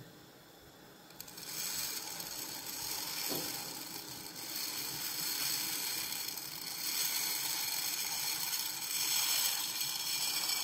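Dry small tube pasta sliding off a ceramic plate and falling into a pot of boiling water: a dense clatter of many small hard pieces that starts about a second in and stops suddenly near the end.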